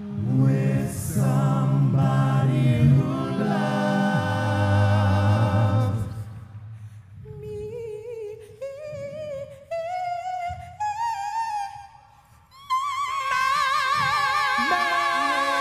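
A vocal group singing live. Several low voices hold chords at first. Then a woman's solo voice climbs step by step with vibrato, and about three-quarters of the way in the whole group comes back in loudly under a high held note.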